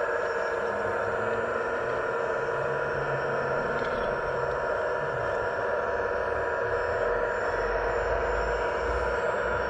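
Scale RC hydraulic construction model's electric pump running with a steady whine, with shifting low rumbling from the machine working.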